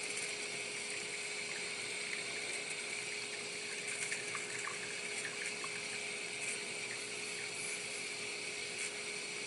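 Espresso trickling from the portafilter of a 1996 brass La Pavoni lever espresso machine into a ceramic cup as the lever is pressed down, heard as a faint steady hiss with a constant low hum.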